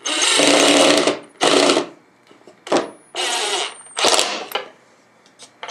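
DeWalt cordless impact driver running screws through a steel hinge into a plywood jig base, hammering in several bursts: a long one of about a second at the start, then shorter ones with brief pauses between.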